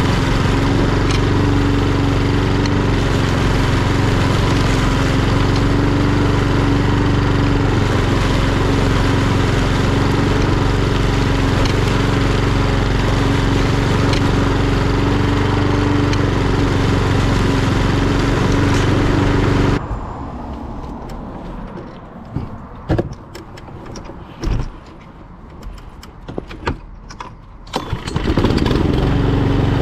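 Etesia Pro46 walk-behind mower's single-cylinder Honda GCVx170 engine running steadily with a constant hum. About two-thirds of the way through the engine sound cuts off abruptly, leaving several seconds of much quieter knocks and clicks. Near the end the engine is running again at full level.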